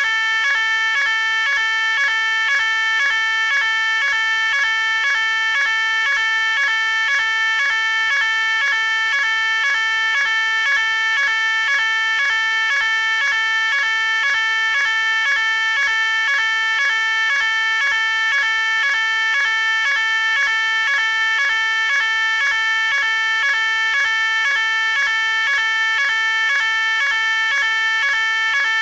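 Electronic fire alarm sounding continuously: a loud, shrill tone pulsing on and off in a fast, even rhythm without a break.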